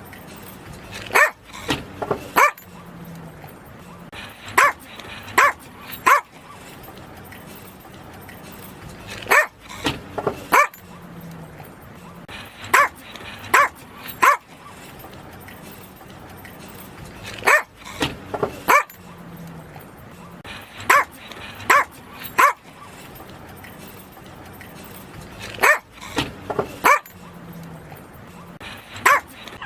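Yorkshire Terrier barking: short, sharp, high barks in quick bursts of two to four, one burst every few seconds. The same sequence of bursts repeats, as in a looped recording.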